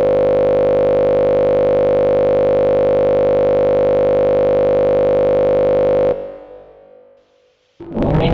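Steady synthesized emergency alert tone: one buzzy, unchanging drone with many overtones, held for about six seconds and then fading away. Music starts near the end.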